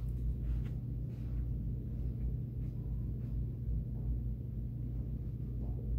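Steady low hum of the indoor room, with a few faint light taps.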